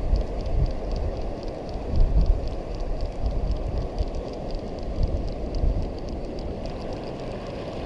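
Wind rumbling in gusts on the microphone, with a faint, fast, even ticking from a spinning reel being cranked to retrieve a lure.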